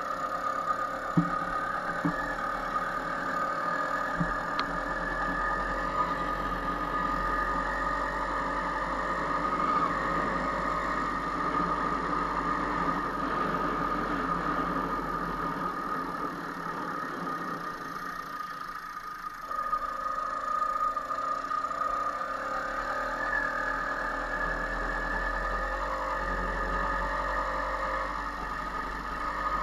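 A vehicle's motor running steadily during a ride, with a steady high whine over a low rumble; a few light knocks in the first few seconds, and a brief dip in the motor sound a little after halfway.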